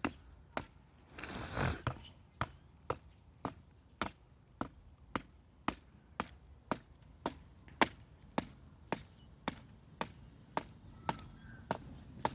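Hatchet chopping small tree limbs: sharp, evenly spaced strikes at about two a second, with a short rustling noise about a second in.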